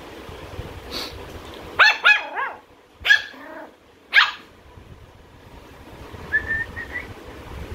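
Pomeranian puppy yapping in high-pitched barks: a quick burst of two or three about two seconds in, then single yaps a second and two seconds later. A faint thin squeak follows near the end.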